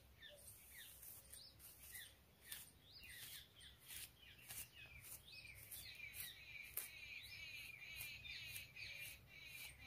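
A plastic comb drawn through long hair, giving faint scratchy swishes at an uneven pace of about one or two strokes a second. Small birds chirp throughout.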